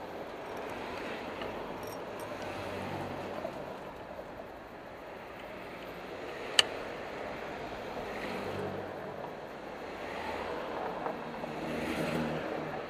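City road traffic: cars driving past with engine and tyre noise that swells as each one goes by, loudest near the end as a car passes close. A single sharp click comes about two-thirds of the way through.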